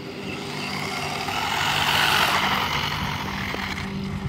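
DeeRC 300E electric RC car passing at speed on asphalt: a rushing whir of motor and tyres that swells to its loudest about two seconds in, then fades as the car speeds away.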